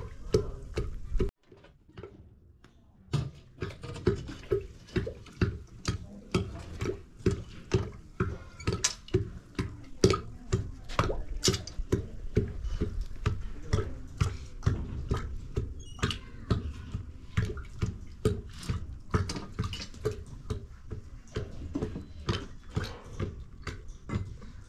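A long wooden pestle pounding in a tall wooden mortar, about two knocks a second, with a pause of about two seconds near the start.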